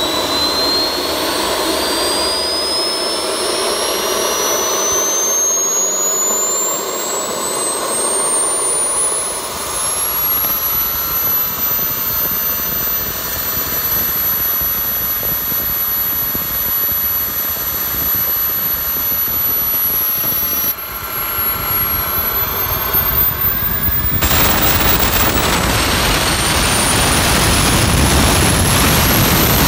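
Kingtech K45TP turbine-turboprop engine running with its propeller turning, a high turbine whine over propeller and exhaust noise. The whine rises in pitch over the first ten seconds as the engine speeds up, holds steady, then climbs again, and about 24 seconds in the whole sound suddenly gets louder.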